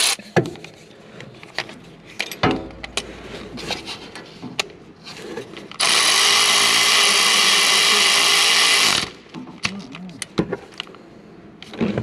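Clinks and knocks of tools and parts, then a cordless power tool runs steadily for about three seconds, about six seconds in, tightening a bolt on the PTO shift arm bracket.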